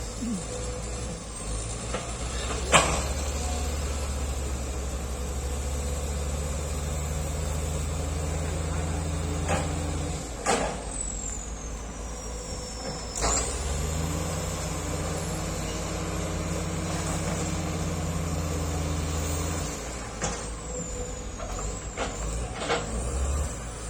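Heavy-equipment diesel engine running with a steady low drone that falls away about ten seconds in, picks back up a few seconds later and falls away again near the end, with a few sharp knocks, the loudest about three seconds in.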